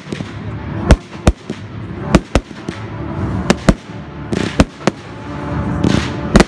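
Fireworks going off: about nine sharp bangs, several in close pairs, over a continuous hissing rush that swells twice.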